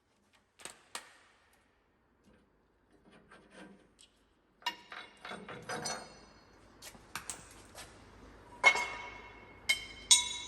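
Hand tools clinking and knocking on steel parts, a few quiet clicks and then a run of sharp metallic strikes that ring on briefly. The loudest two strikes come near the end.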